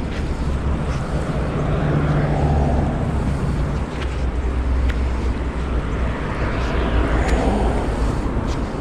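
Wind buffeting the microphone in low, rumbling gusts that swell about two seconds in and again near the end, over the steady rush of a shallow river.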